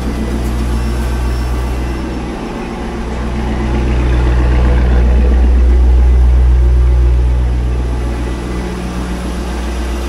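Chevrolet Corvette C5's V8 engine idling steadily, growing louder through the middle and easing back near the end.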